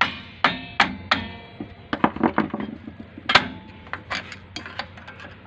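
Sharp metallic clicks and clanks, several with a brief ringing after them, as a screwdriver pries a strong return spring off a Toyota Revo's drum brake shoe. The loudest clank comes a little past three seconds in.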